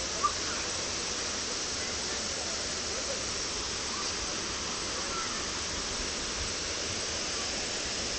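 Waterfall pouring steadily: an even, unbroken rush of falling water. One brief sharp click comes just after the start.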